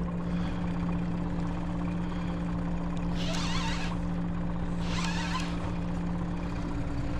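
Boat's outboard motor running at a steady low speed with a constant hum. Two brief splashy rushes of choppy water against the boat come about three and five seconds in.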